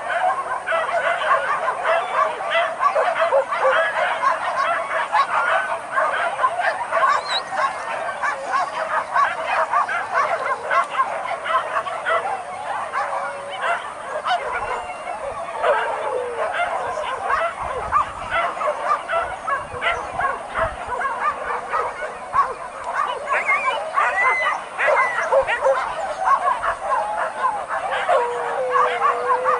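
A pack of hunting dogs yelping and baying without pause, many high voices overlapping.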